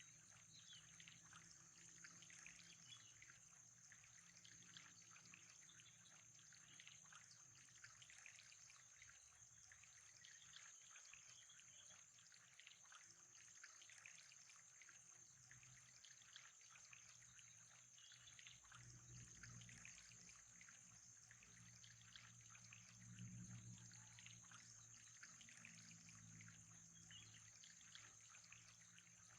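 Faint, steady trickling water.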